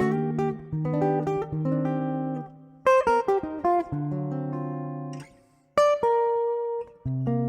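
Background music: solo guitar playing a jazz standard, plucked chords and single notes ringing out, with short pauses between phrases.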